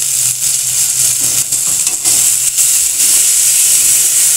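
Tomato, bay leaves and ginger–green chilli paste sizzling steadily in hot oil in a kadai, with a spatula stirring and scraping through the mixture. The sizzle grows a little louder about three seconds in.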